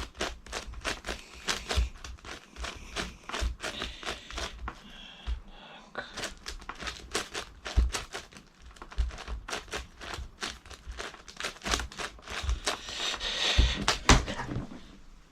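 Plastic 11x11 Rubik's cube being turned one-handed: quick, irregular clicking and rattling of its layers, several turns a second, with a few louder knocks.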